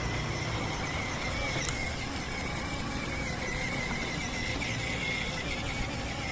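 Electric ride-on toy motorcycle driving over brick paving: a steady, slightly wavering high whine from its small motor over a low rumble of the plastic wheels.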